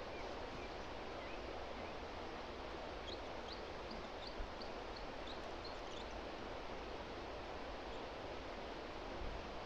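Steady rushing of flowing river water, with a small bird singing a quick run of short, high chirps from about three to six seconds in.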